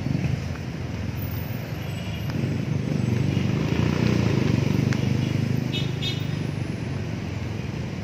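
Road traffic on the city street, a steady low rumble with one vehicle passing that grows louder in the middle and then fades.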